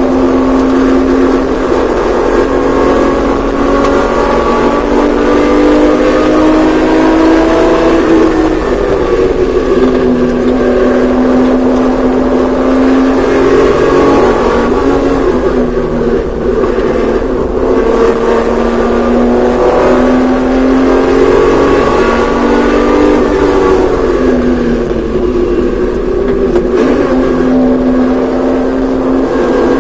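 Porsche 911SC's air-cooled 3.0-litre flat-six at racing speed, heard from inside the cabin: the engine note climbs steadily under acceleration and falls off sharply a few times as the car slows for corners, over steady road and wind noise.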